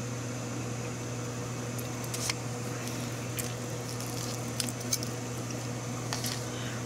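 Fork and knife cutting through a roasted chicken leg quarter on a paper plate: soft squishing with a few light clicks, over a steady hum.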